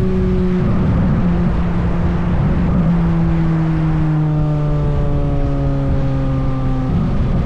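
Chevrolet Corvette C8 Z06's flat-plane-crank V8 running on a trailing throttle downhill, its note sinking slowly as the revs fall, with a few sudden jumps in pitch from gear changes.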